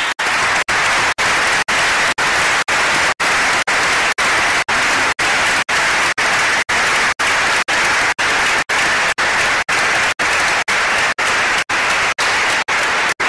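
Audience applauding steadily at the end of a talk. The clapping is cut by brief, evenly spaced dropouts about twice a second.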